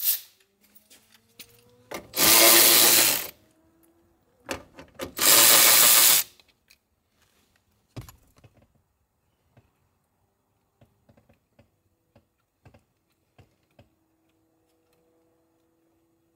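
A power tool run in two loud bursts of about a second each, with light clicks and taps of hand work in between and after.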